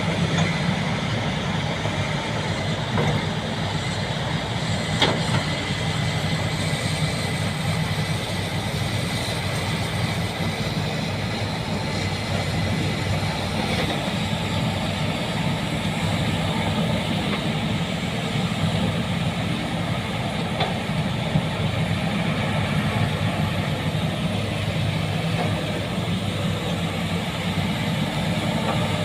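Heavy earthmoving machine's diesel engine running steadily, with a few sharp knocks, the clearest about five seconds in.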